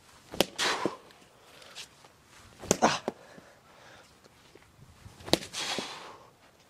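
Baseball smacking into a leather glove three times, about two and a half seconds apart, during a game of catch. Each sharp pop is followed by a brief rustle of movement.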